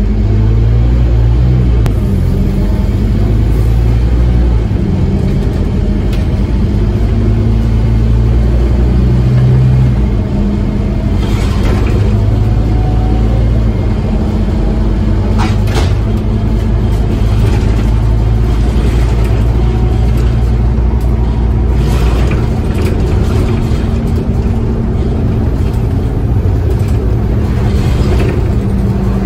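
Scania N230UD bus's five-cylinder diesel engine running under way, with road and tyre noise as heard inside the passenger saloon. The low engine note changes about ten seconds in, and a few brief knocks or rattles come through later.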